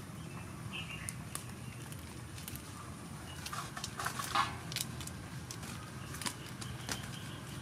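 Kitchen knife scraping the skin off young tamarind pods: a run of small scratchy clicks, with a louder scrape about four seconds in, over a low background hum.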